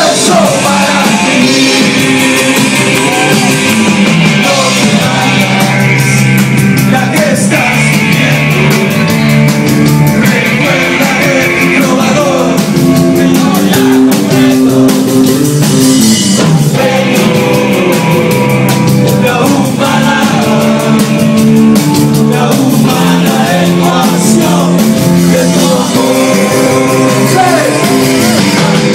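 Loud live rock band playing with a singer, drum kit and guitars.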